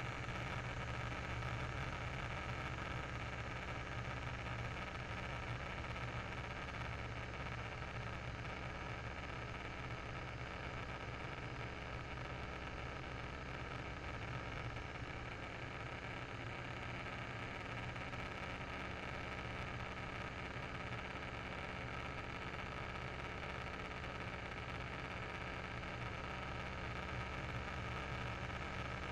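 Open-cockpit biplane in flight: its piston engine drones steadily under a rush of wind from the slipstream.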